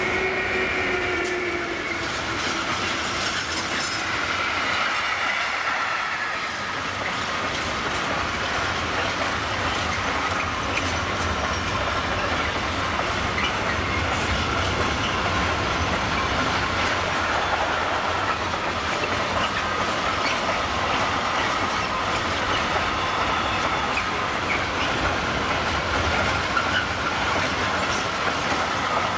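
Container freight train hauled by an electric locomotive passing close by: steady rolling rumble and clatter of the wagon wheels, with a high wavering wheel squeal all the way through.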